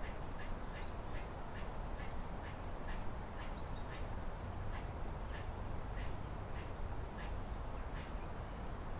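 Raccoon chewing dry dog-food kibble: a steady run of short crunches, about two or three a second.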